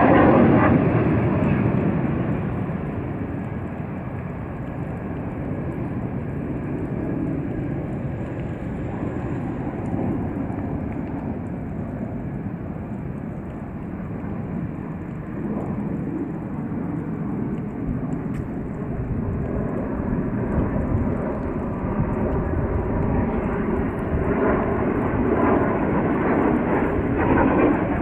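Alpha Jet display jets flying overhead. The jet roar is loudest at the start, fades over a few seconds into a steadier distant rumble, and builds again near the end as the formation comes round.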